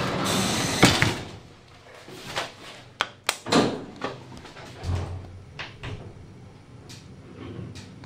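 Manual doors and collapsible metal gate of an old goods lift being worked by hand: a scraping rush at first, then several sharp metal clacks, a low thump about five seconds in, and a few lighter knocks.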